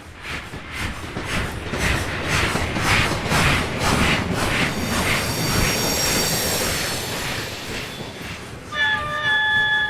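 Steam locomotive passing, its exhaust chuffing in a steady beat of about two a second. Near the end its whistle sounds suddenly, several pitches at once, and holds.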